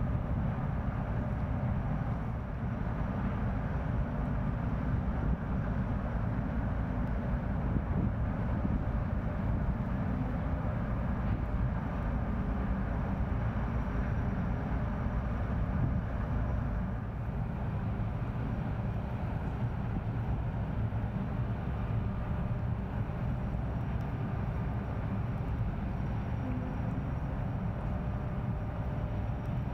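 Diesel engine of a push boat running steadily as it pushes barges upriver, a continuous low drone with a few faint steady tones above it.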